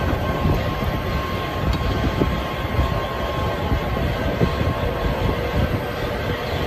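Steady mechanical rumble with a few faint, even hums above it, continuous and unchanging.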